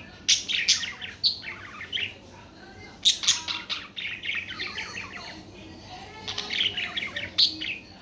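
Budgerigars chirping and warbling in three bouts of quick, high chirps: about the first two seconds, again from about three to five seconds in, and once more near the end.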